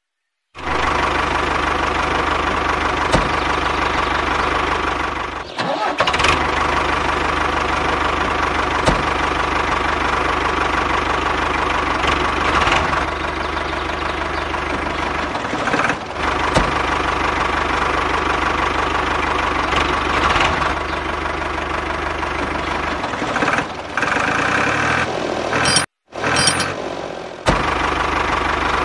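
Steady, engine-like running noise of a miniature model tractor. It cuts out briefly near the end and resumes.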